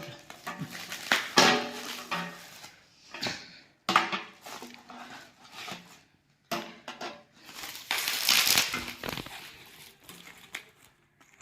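Packaging being handled and torn open by hand: irregular crinkling, rustling and crackling that comes and goes, densest a little past the middle.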